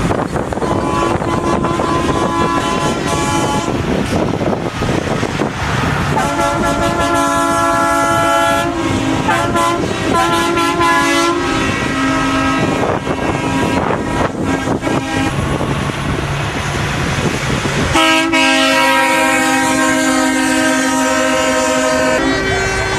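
Semi-truck air horns blowing long, chord-like blasts over the rumble of passing truck engines. One stretch of horn runs for several seconds with short breaks, and another long blast comes near the end.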